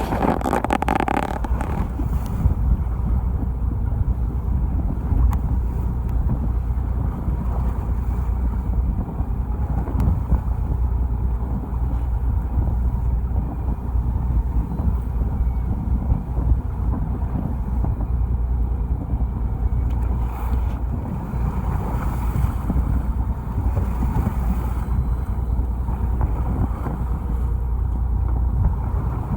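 Charter fishing boat at sea: a steady low rumble with wind buffeting the microphone.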